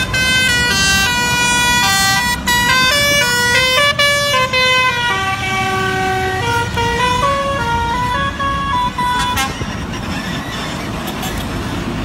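Telolet multi-note musical air horn on a heavy truck playing a quick tune of short stepped notes over the truck's engine rumble. The horn tune stops about nine and a half seconds in, leaving engine and road noise.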